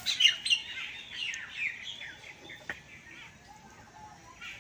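Small birds chirping: a quick run of short, falling chirps in the first half that thins out, with one sharp knock a little past halfway.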